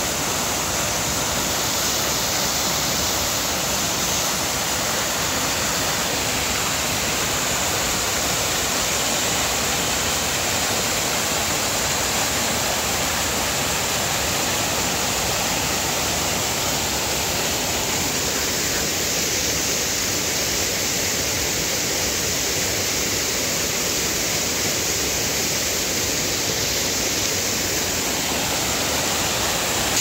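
Small waterfalls pouring into a shallow rock pool: a steady, unbroken rush of falling water.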